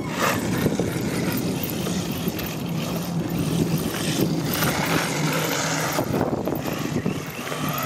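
Haiboxing 2995 electric RC truck driving: a steady motor-and-drivetrain hum with noise from the tyres and surroundings over it, swelling briefly now and then.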